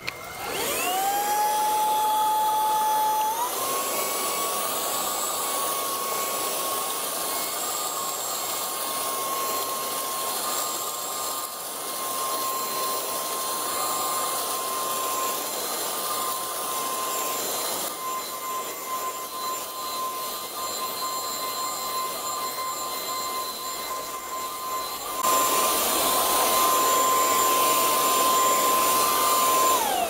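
MOOSOO K17 cordless stick vacuum with a motorized brush head, switched on and run over a rug to pull out ground-in dog fur. Its motor whine rises as it spins up, steps up to a higher pitch about three seconds in and holds steady, gets louder near the end, then falls in pitch as the motor is switched off.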